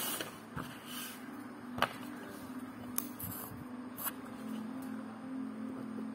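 A few sharp clicks and light knocks from a book and a plastic ballpoint pen being handled on a wooden desk, the loudest about two seconds in. Soft background music with a plucked guitar-like melody comes in about five seconds in.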